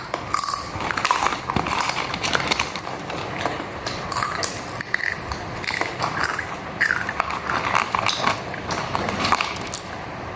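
Close-miked mukbang eating: a person biting and chewing food with many small, irregular crisp clicks.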